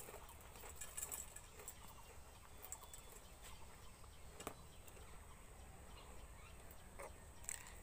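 Near silence: faint outdoor room tone with a few soft clicks.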